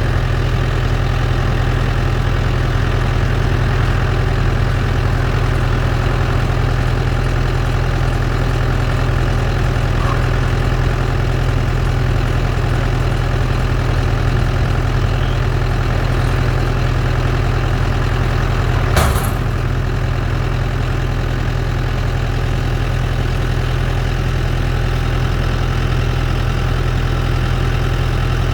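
Case IH Puma tractor's diesel engine running steadily while pulling a Vermeer 504R round baler at work. A single sharp clack sounds about two-thirds of the way through.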